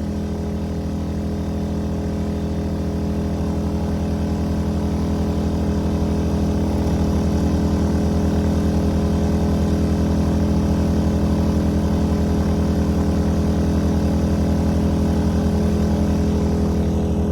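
A-iPower SUA1500i 1500-watt gas inverter generator running steadily. Its engine gets gradually louder over the first several seconds as it picks up the RV's electrical load, which it carries without stumbling.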